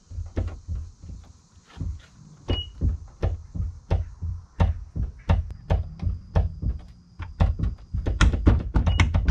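Honda Ridgeline in-bed trunk lid knocking and thunking in its frame, about three times a second, as it is pushed down by hand to free its jammed latch. The knocks grow louder and come faster near the end.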